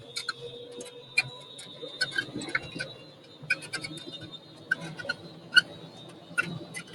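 Irregular sharp clicks and taps, a few loud ones standing out, over a faint steady whine.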